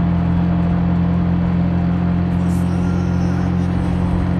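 Car engine running at a steady cruise while driving, a loud, even low drone.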